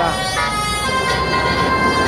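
A tour bus's telolet multi-tone musical horn playing a tune: held horn notes that step from pitch to pitch, the last one held for over a second.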